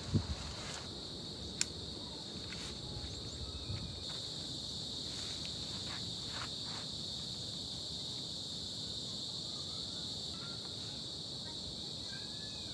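A steady, high-pitched chorus of insects droning without a break, with a few light knocks in the first two seconds.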